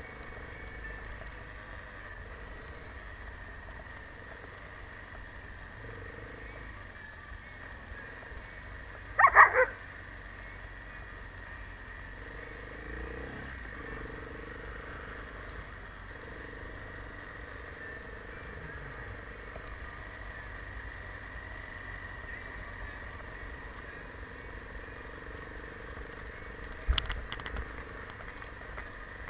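Enduro motorcycle engine running steadily at low speed on a snowy road. A dog barks in a short loud burst about nine seconds in, and there is a second short burst near the end.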